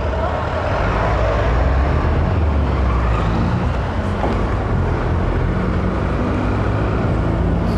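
Honda motorcycle engine running as the bike picks up speed at low speed, heard under a steady rumble of wind on the camera microphone and tyre noise on wet asphalt.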